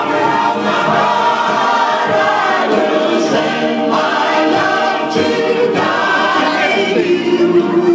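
Group of people singing along together to loud music, many voices at once.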